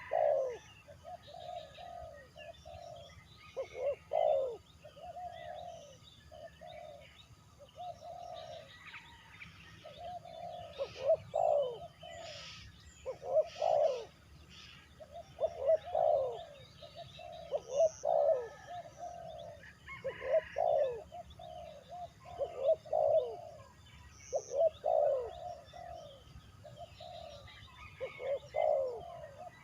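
Doves cooing in runs of short, bending notes, a phrase every second or two. Faint chirps of small birds sound higher up.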